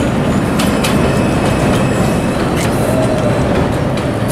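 Vintage Lo-V subway train running through an elevated station without stopping: steady wheel and rail noise, its wheels clattering over rail joints on the steel structure. A faint wheel squeal comes about three seconds in.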